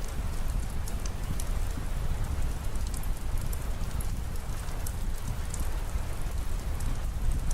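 Steady rain falling on a surface, with scattered sharp drop ticks over a low rumble.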